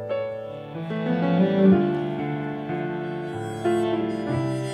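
Slow instrumental prelude music played on piano with bowed strings, the notes held and changing about once a second.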